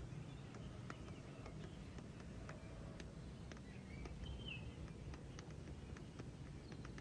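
Quiet background with a low hum, scattered faint clicks at uneven spacing, and a short faint chirp a little after four seconds in.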